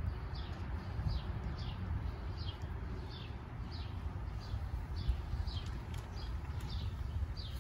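A small bird calling over and over, a run of short notes each sliding down in pitch, under a steady low rumble.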